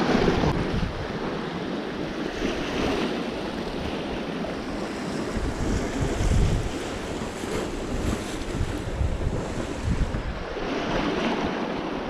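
Sea waves washing against a rocky shoreline, with strong gusty wind buffeting the microphone in irregular low rumbles.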